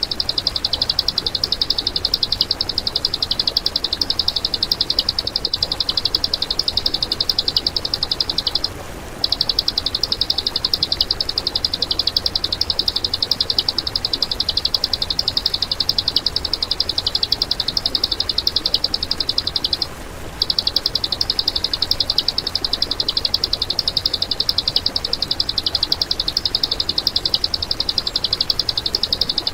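A songbird's harsh, high-pitched rattling trill, a very fast run of notes repeated without pause. It is looped as masteran training material, with two brief breaks about nine and twenty seconds in.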